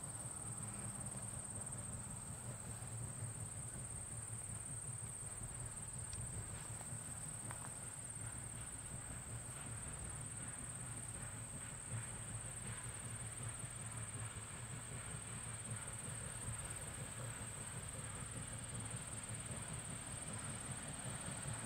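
Crickets chirring steadily in the grass, one unbroken high-pitched note, over a faint low rumble.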